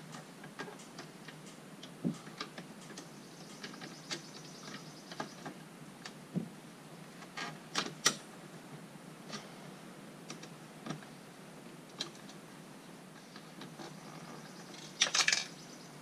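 Scattered light clicks and taps of plastic door-trim parts and the door-handle hardware being handled and worked loose in a C4 Corvette's door panel, with a quick cluster of louder clicks near the end.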